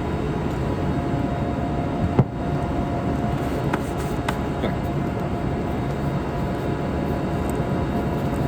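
Steady machinery hum with a sharp click a little over two seconds in and two faint ticks around four seconds.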